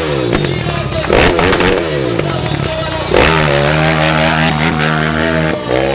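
Motorcycle engine revved repeatedly, its pitch swinging up and down, then held steady at high revs for about two seconds before rising again near the end.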